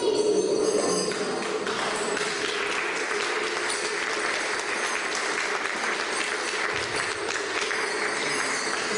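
Audience clapping, which sets in about a second and a half in and runs on steadily, as the lion dance music dies away. The music comes back in just at the end.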